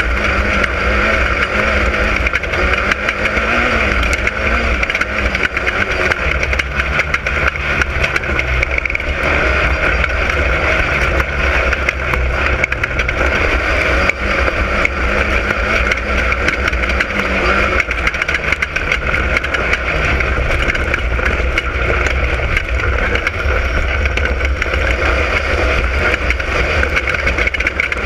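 Class 10 off-road race car's engine running hard at speed, its pitch rising and falling with the throttle over a loud constant rumble.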